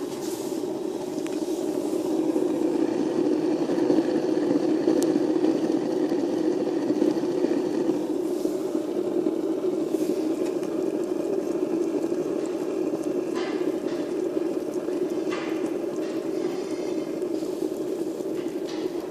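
A bad, worn bearing humming steadily in a running machine, a continuous drone with a few light clicks in the last few seconds.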